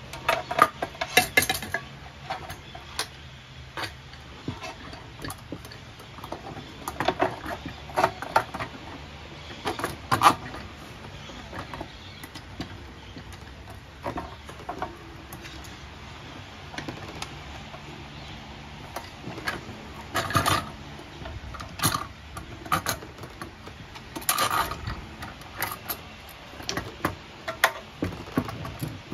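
Irregular clinks, taps and knocks of metal parts being handled and set in place as a Fuji Spray Mini Mite 4 turbine's motor assembly is fitted into its metal cabinet, coming in short clusters with pauses between.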